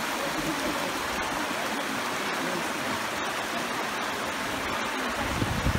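Shallow river running over rocks and small rapids: a steady rush of water.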